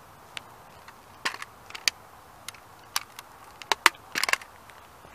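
A plastic and die-cast model Ferrari creaking and cracking under a sneaker's sole pressing down on it on asphalt: a scatter of sharp clicks and snaps, the loudest cluster near the end as the shoe bears down on the roof.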